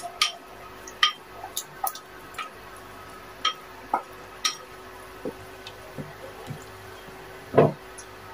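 Pot of soup stock on the boil, popping with irregular bubbles about once or twice a second, with one louder, deeper plop near the end.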